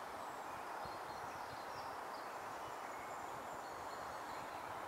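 Steady outdoor background hiss in woodland, with faint, short bird chirps scattered through it.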